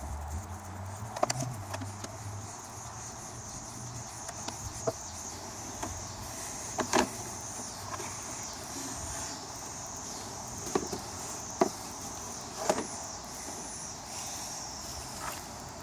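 Scattered clicks and light knocks of hand tools on a lawn mower's housing as screws are taken out and a cover is worked loose, about half a dozen sharp taps spread over the stretch with quiet handling noise between.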